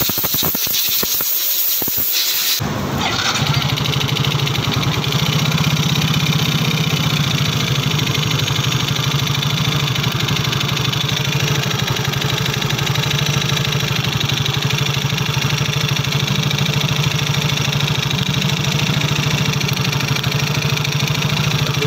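Yamaha Soul GT's single-cylinder four-stroke scooter engine starts about two and a half seconds in, then idles steadily with a noisy, rough running sound. The mechanic traces the roughness to the engine being run almost dry of oil after three months without an oil change.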